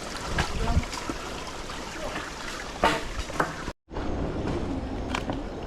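Sea water washing and trickling among shore rocks, with a few sharp knocks. The sound drops out for a moment about two-thirds of the way in, then carries on.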